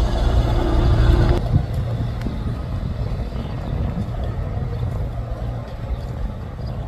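An engine running with a low, steady rumble. It drops sharply in level about a second and a half in, then carries on softer.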